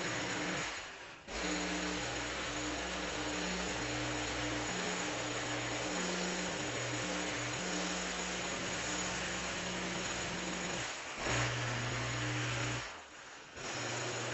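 A small petrol engine on a power tool running under a steady hiss, its pitch stepping up and down. The sound drops out briefly about a second in and again near the end.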